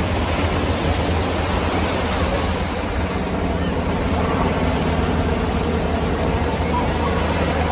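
Steady low drone of a military helicopter's rotor and engines flying overhead, mixed with the hiss of breaking surf.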